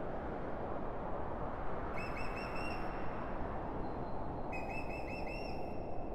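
A bird calling twice, each a short warbling call of about a second, over a steady low background rush of the ambience bed.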